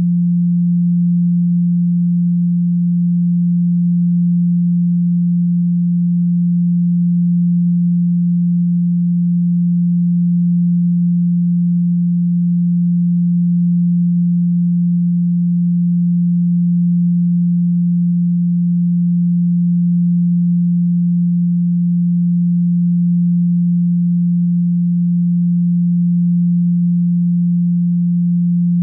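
A steady pure 174 Hz sine tone, the Solfeggio frequency, held as one low, unbroken hum at an even level.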